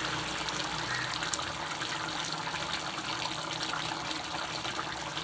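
Thick tamarind curry boiling hard in a pan: a steady bubbling with small pops.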